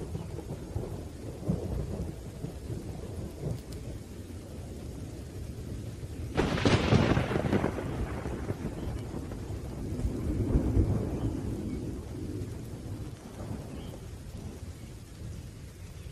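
Thunderstorm with rain: low thunder rumbles throughout, a sharp thunderclap breaks about six seconds in and rolls away over a couple of seconds, and another rumble swells near eleven seconds.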